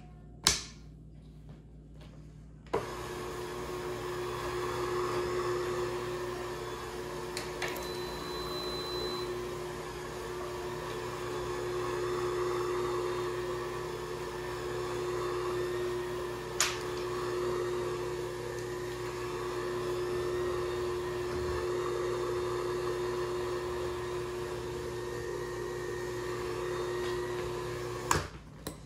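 Bissell SpinWave electric spin mop running with its two heavy scrub pads spinning on a tile floor: a steady motor hum with one held tone. The hum starts about three seconds in and shuts off near the end, after a sharp click near the start.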